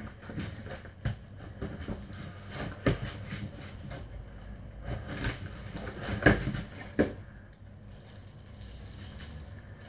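Handfuls of slime mixed with polystyrene foam beads being kneaded and squeezed by hand: irregular squishes and crackles, with a few sharper ones around three, five and seven seconds in.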